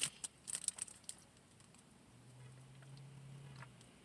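Quiet eating sounds: a few soft mouth and food clicks in the first second, then a faint low steady hum for almost two seconds near the end.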